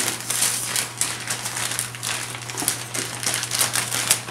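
Gift-wrapping paper being crinkled and torn by hand as a present is unwrapped, in irregular rustles and rips.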